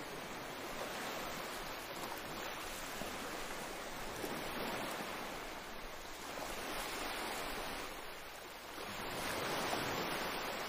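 Water rushing and splashing along the hull and outrigger floats of a moving outrigger boat, swelling and easing every couple of seconds.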